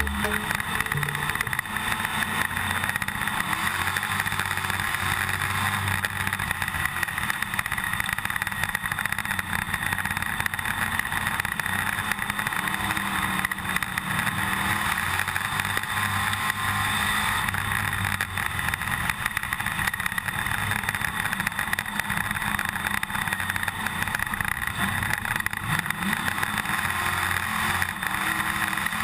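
IMCA stock car's V8 engine running hard at racing speed, heard from inside the cockpit, with the onboard camera rattling over it.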